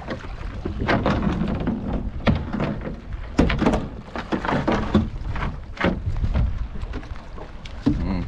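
Irregular knocks and splashes from hauling a longline and its float in over the side of a small wooden fishing boat, with wind rumbling on the microphone.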